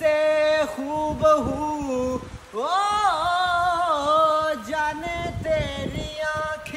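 Male voice singing a slow Bollywood song melody in long held notes, with a swooping rise into a high sustained phrase about three seconds in.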